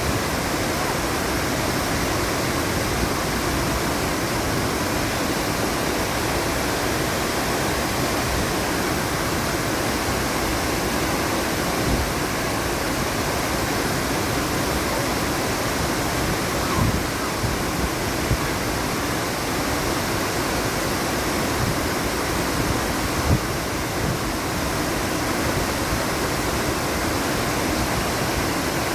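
Waterfall rushing close by: a steady, even roar of falling water, with a few brief knocks partway through.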